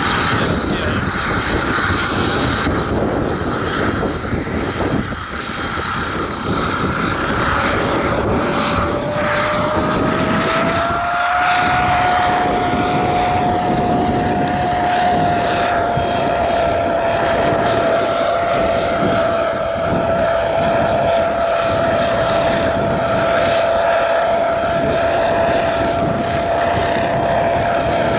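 Drone with full payload flying, its motors and propellers making a steady whining hum over rushing noise. The whine rises in pitch over a few seconds about a third of the way in, then holds.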